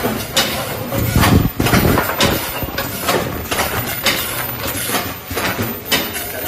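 A machine clattering, with rapid, irregular clicks several times a second.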